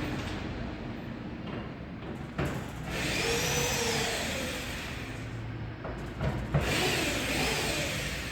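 Garage door opener motor running as it drives a sectional door along its track, with a steady hum and rumble. A brief rising-and-falling whine comes twice, about three seconds in and again near the end.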